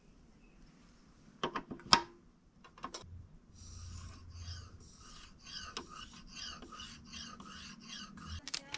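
Kitchen knife blade being stroked back and forth on a sharpening stone, a steady rasping rhythm of about two strokes a second. A few sharp clicks and knocks come before it, then the strokes start.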